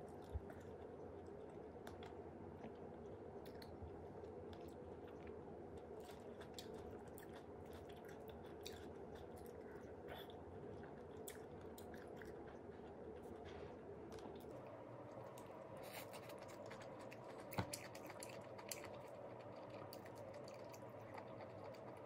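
Faint close-up eating sounds: chewing and crunching of a salad, with scattered sharp clicks of a metal fork in a ceramic bowl over a faint steady hum. One sharper click comes about half a second in and another about three quarters of the way through.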